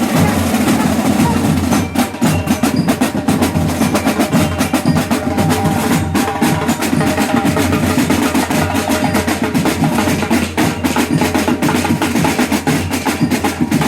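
A marching band's drum section playing loud and fast, with snare drums in rapid strokes and rolls over heavier drum beats.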